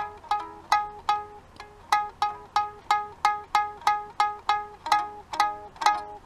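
Small toy ukulele's strings plucked one note at a time, about three a second, each note ringing briefly and dying away, with a short pause about a second and a half in.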